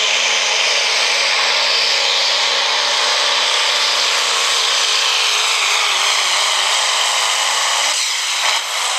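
Chevrolet Silverado diesel pickup engine running flat out under load while pulling a sled, with a steady, wavering note. About eight seconds in the engine note drops as the pull ends.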